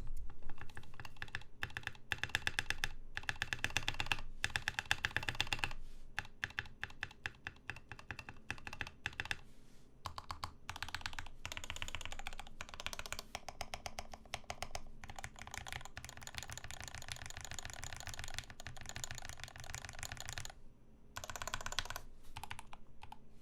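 Fast typing on a Rama M65-B mechanical keyboard with lubed Gateron Ink switches on a brass plate with a mute-mount dampener: dense runs of keystrokes with a muted, smooth thock, pausing briefly near the end.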